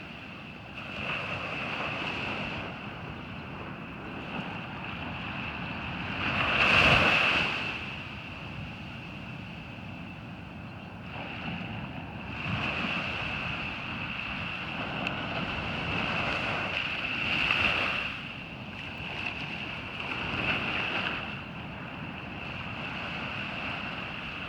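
Ocean surf on a beach, waves washing in and swelling every few seconds, the biggest about seven seconds in, with wind on the microphone.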